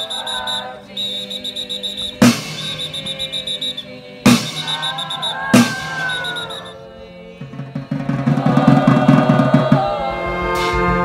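Live band music punctuated by three sharp drum strikes about two seconds apart, then a fast drum roll about two-thirds of the way through before the band plays on.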